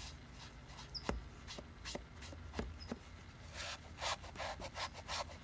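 Magic eraser scrubbing a wet, oxidized tobacco pipe stem: scattered rubbing strokes with a few small clicks, then a quick run of strokes, about four a second, in the last couple of seconds. The scrubbing lifts grime and surface oxidation off the stem.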